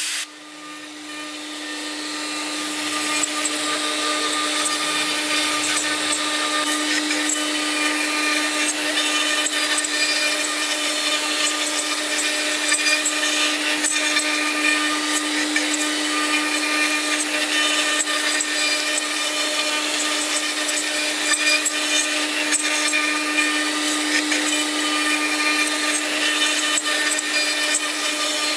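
LH-8101 CNC router's spindle running with a steady whine while its carving bit cuts a relief into wood, a continuous rasping, crackling cut. The sound dips briefly at the start and builds back over the next few seconds.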